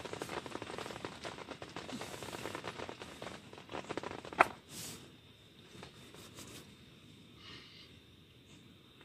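Dense rustling and crackling for about four and a half seconds, ending in one sharp click, then much fainter.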